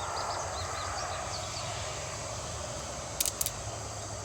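Steady outdoor chorus of crickets or similar insects, with a low hum underneath and two short sharp clicks just after three seconds in.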